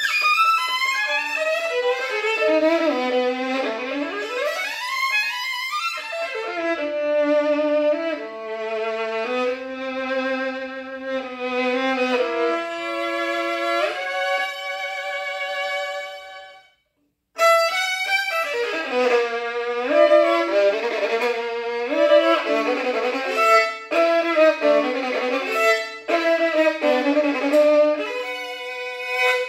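Unaccompanied solo violin: fast runs sweeping down and up, then a stretch of held notes, a brief stop about halfway through, then more rapid passagework.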